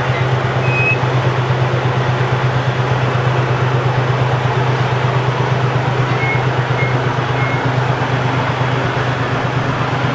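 Small diesel shunting locomotive's engine running at a steady note with a regular throb, as the locomotive draws a carriage slowly along the track.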